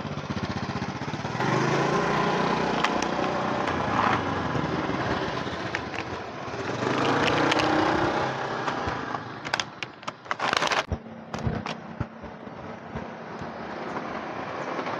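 Motor vehicles passing along a street one after another, each swelling up and fading away: two louder passes in the first half and a car going by near the end. About ten seconds in, a short cluster of sharp clicks and a brief crackling burst.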